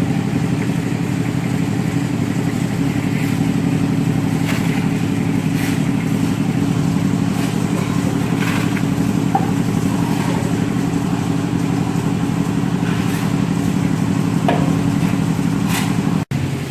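An engine running steadily at an even speed, with scattered short knocks or scrapes over it.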